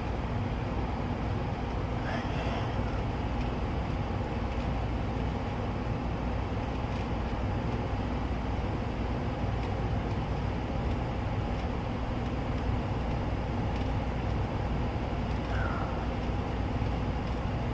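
Gas furnace running in heating mode, burners lit and blower fan on: a steady rush of air with a low, even hum.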